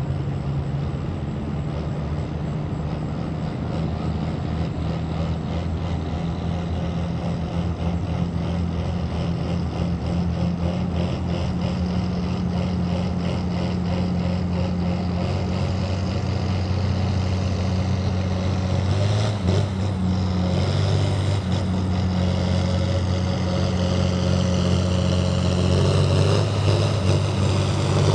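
John Deere farm tractor engine running hard under heavy load while pulling a weight-transfer sled, a steady drone that grows louder as the tractor comes closer. The engine note dips briefly about two-thirds of the way through and climbs near the end.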